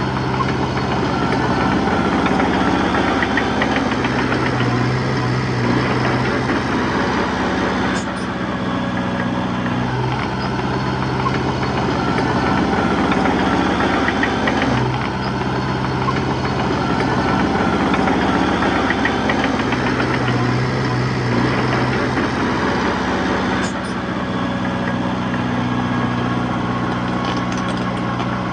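Heavy-equipment diesel engine running steadily under working load, easing off briefly about every seven or eight seconds and picking up again. A few faint clicks come through along the way.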